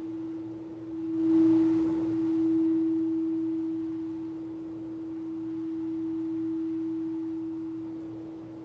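Singing bowl ringing one steady, pure tone that swells louder about a second in and then sustains, slowly waxing and waning.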